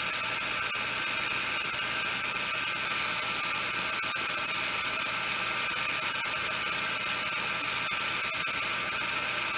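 Steady, even hiss with a few faint clicks.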